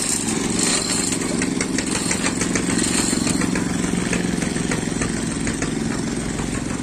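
Small wooden river boat's engine running steadily under way, a constant drone with a fast rattling tick.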